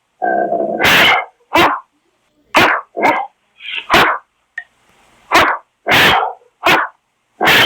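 Great Dane barking repeatedly: loud, deep single barks with short silent gaps, roughly one or two a second.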